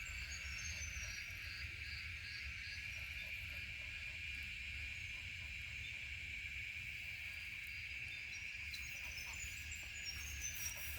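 Outdoor ambience: a steady high-pitched insect drone, with a bird's descending series of chirps at the start and again near the end, over a low rumble.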